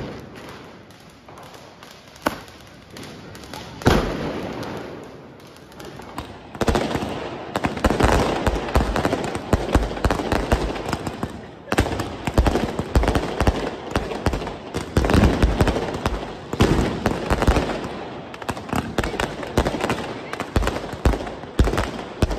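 Diwali fireworks: a few separate bangs, then from about six seconds in a dense, continuous run of bangs and crackling as aerial shells burst overhead.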